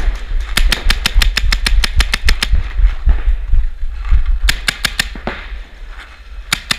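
Paintball markers firing rapid strings of shots at about seven a second. A long string starts about half a second in, another comes around the middle, and a short one falls near the end, all over a low rumble.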